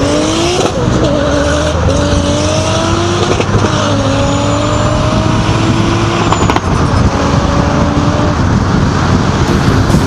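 Car engine accelerating through the gears, its pitch climbing and then dropping back at each gearshift in the first few seconds before holding steady at cruising speed, over heavy wind and road noise.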